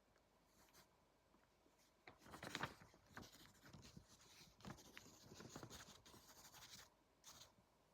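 Pencil scratching on paper in quick irregular strokes while drawing, faint, starting about two seconds in and stopping shortly before the end.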